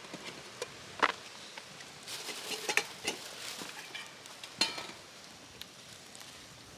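Metal utensils clinking and scraping on cookware, four or five sharp clinks in the first five seconds, over light sizzling from the freshly cooked steak.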